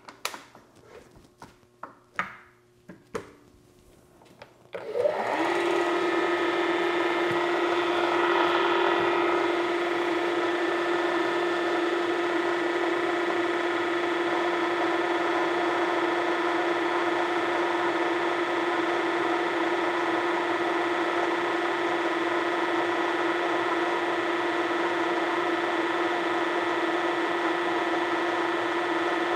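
A few metallic clicks as a bit is tightened in the chuck, then about five seconds in a drill press starts and runs steadily with a constant hum, turning a long bit that is fed into a metal block to drill or ream a hole.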